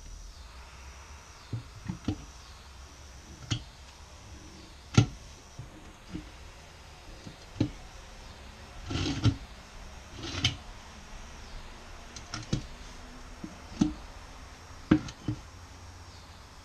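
Tire and wheel rim being worked by hand to seat the bead: irregular knocks and thumps of rubber and rim, about a dozen, the loudest about five seconds in and a cluster of several shortly after nine seconds.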